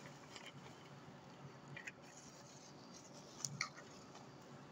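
Faint rustling and a few light clicks of bubble wrap being handled and opened, with a slightly louder pair of clicks about three and a half seconds in.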